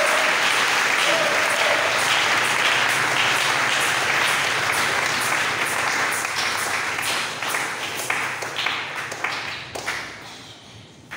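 A church congregation applauding: a dense burst of many hands clapping that thins to scattered claps and dies away about ten seconds in.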